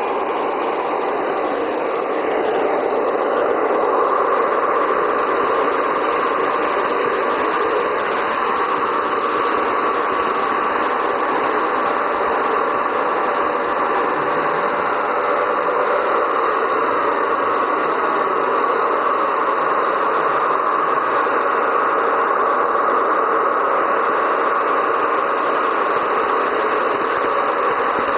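Gauge 1 model train running steadily: a coupled pair of model DB Class 211 diesel locomotives hauling a long rake of ore hopper wagons. It makes a continuous diesel-engine-like drone over the rolling rattle of wheels on the track.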